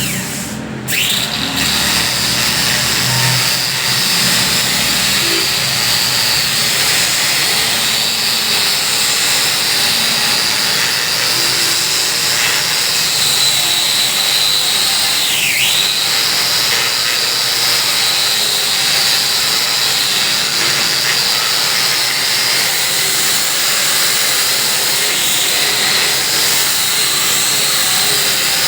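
High-speed electric woodworking power tool running continuously on sal wood, its whine dipping sharply and recovering about a second in and again a little past the middle, as the motor is loaded by the cut.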